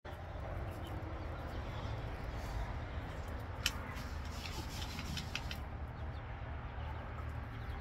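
Galvanized metal chicken feeder being taken up by its wire bail handle: one sharp clink, then a quick run of lighter metallic clinks, over a low steady rumble.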